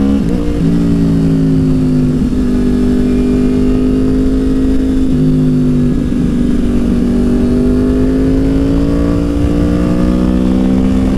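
2009 Yamaha R1's crossplane inline-four engine running at a steady road cruise, with slight pitch dips from small throttle changes, heard from the rider's seat over a low wind rumble.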